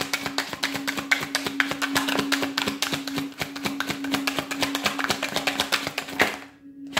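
Tarot cards being shuffled by hand: a quick, continuous run of soft card taps and flicks, breaking off briefly near the end. A steady low hum runs underneath.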